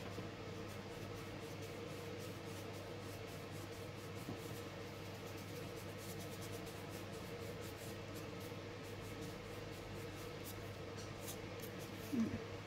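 Fingertips rubbing soft pastel powder onto paper in small circles, a faint dry rustling with light ticks, over a steady low hum. The ticks come more often near the end as the paper sheets are shifted.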